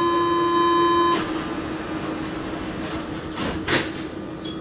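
Santiago Metro train: a steady tone with several pitches cuts off about a second in, leaving a fainter low hum and running noise, with two short bursts of hiss near the end.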